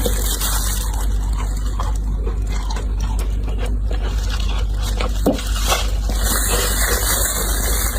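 Dry deep-freezer frost being scraped and crushed by hand, a continuous grainy crunching with a couple of sharper squeaks about five seconds in. A steady low hum runs underneath.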